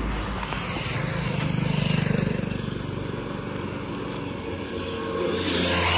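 A small engine running with a fast, even putter that swells about two seconds in; near the end a steadier, lower engine hum comes in.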